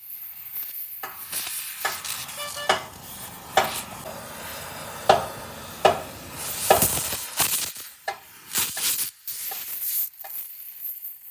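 Metal clinking and knocking with scraping in between: a dozen or so sharp, irregular knocks, typical of hand tools working on metal.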